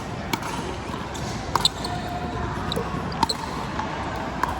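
Pickleball paddles striking the hard plastic ball and the ball bouncing on an indoor court: about five sharp pops, a second or so apart, some ringing briefly, over the steady din of a large hall full of play.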